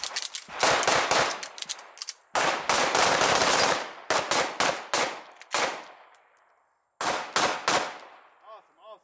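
Pistol fired in rapid strings of shots, with short pauses between strings; a last quick string of about four shots comes near the end.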